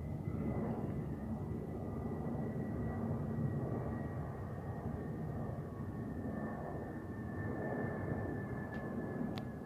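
Airplane passing overhead: a steady engine rumble with a thin high whine that slowly drops in pitch. A brief click comes near the end.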